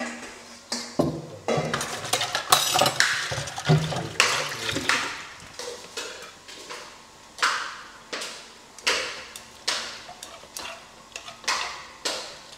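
Kitchen work with pots and water: a run of short splashing and clattering strokes, roughly one a second.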